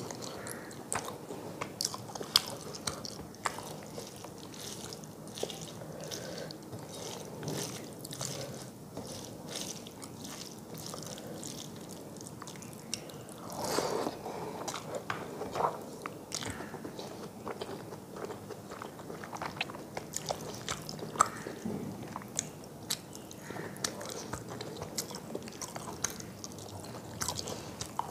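Close-miked chewing and wet mouth sounds of a person eating rice and pomfret fish curry by hand, with many small clicks and smacks throughout and a busier stretch of chewing about fourteen seconds in.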